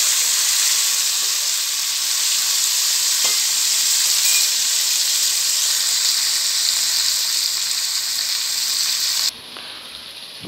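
Mixed vegetables sizzling in hot oil in an aluminium pan, stirred with a spoon, with a faint scrape about three seconds in. The sizzling drops away abruptly near the end.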